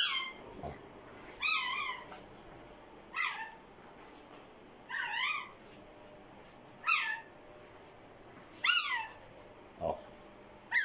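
Pet lorikeet whistling: about seven short, high calls, each a wavering rise and fall in pitch, repeated roughly every two seconds.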